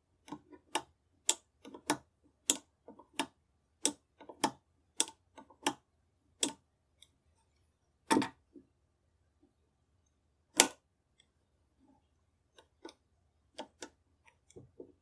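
Lockwork of a French Modèle 1892 revolver, side plate open, being worked by hand: its metal parts click sharply about twice a second for the first six seconds. A louder snap comes about eight seconds in and a sharper one about two seconds later, followed by a few fainter clicks near the end.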